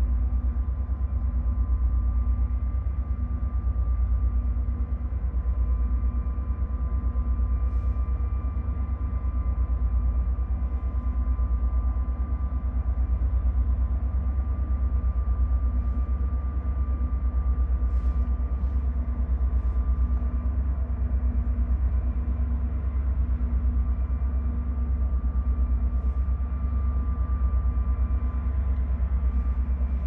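Diesel engines of a river towboat pushing barges: a low, steady rumble with a faint steady hum over it and a few faint ticks.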